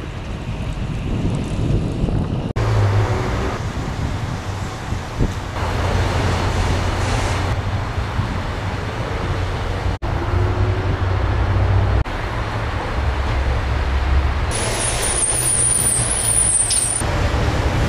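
Street traffic passing, a steady low rumble of engines and tyres with a rise in hiss near the end; it breaks off for an instant three times.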